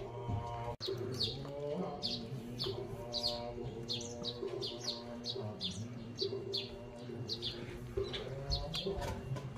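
A small bird chirping steadily in short, quick falling notes, about two a second. Under it runs a slow melody of held notes.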